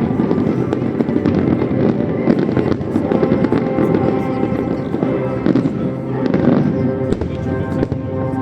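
Fireworks display: a dense, continuous run of bangs and crackling bursts over a heavy low rumble, with music playing alongside.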